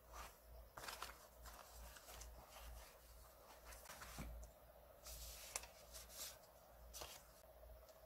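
Paper rustling: thin vintage paper scraps and tags shuffled and laid down on a notebook page, in irregular soft rustles and small ticks, over a faint steady hum.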